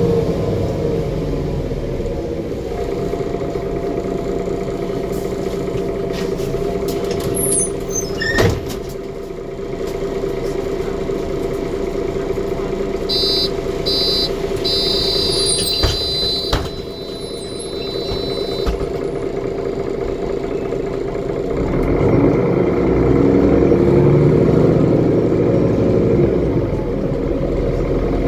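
Inside an articulated diesel city bus: the Mercedes OM457LA engine and Voith automatic gearbox run with a steady hum. A sharp click comes about eight seconds in, and a run of high electronic beeps sounds in the middle. The drivetrain grows louder near the end.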